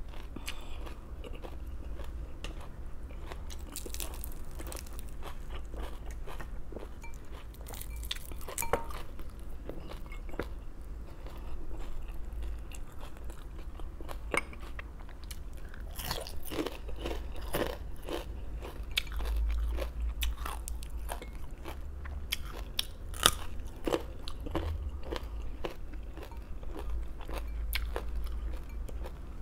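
Close-up crunching and chewing of raw vegetables: irregular crisp bites and chews, thickest about halfway through and again near the end, over a steady low hum.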